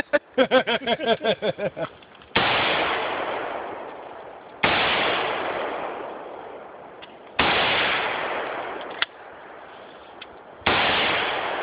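AR-15 rifle fired four single shots a few seconds apart, each a sudden loud crack followed by a long echoing decay.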